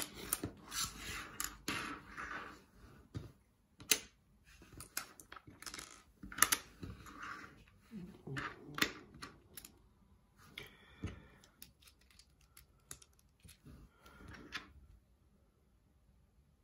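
Rustling packaging and a run of small plastic clicks and taps as a set of Lego-compatible building bricks is unpacked and handled. The clicking is busy at first, thins out after about eight seconds and goes almost quiet near the end.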